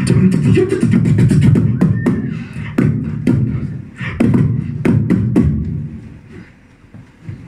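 Two beatboxers performing together into microphones: deep bass lines under sharp snare-like clicks and hits. The beat breaks off with a few last strikes about five and a half seconds in and goes much quieter.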